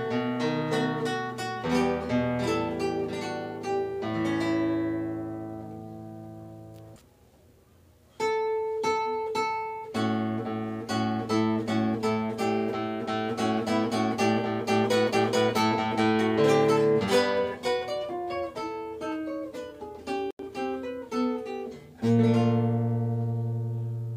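Background music on a plucked guitar: single notes and chords ring out and fade, with a brief pause about seven seconds in and a full chord struck near the end.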